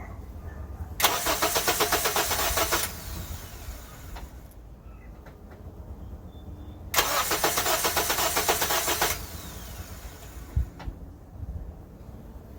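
Two attempts at starting a 2007 Honda Civic with a freshly installed replacement engine. Each is about two seconds of rapid, pulsing starter noise that stops without the engine catching. The uploader puts this down to a missing engine ground on the wiring harness, which makes the main relay click.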